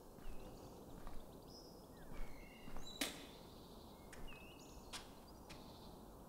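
Faint small-bird chirps, short scattered calls with quick pitch glides. About three seconds in there is a sharp click, followed by a few softer knocks, as a folding camping chair is snapped open and set down on cobblestones.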